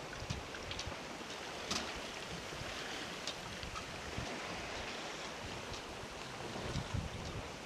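Water rushing and splashing along the hull of a sailboat moving under sail, with wind buffeting the microphone and a few faint ticks scattered through.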